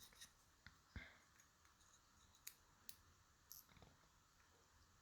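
Faint, scattered light clicks of small metal lock parts being handled, about seven over a few seconds, as the lock cylinder is taken apart and its pins come out.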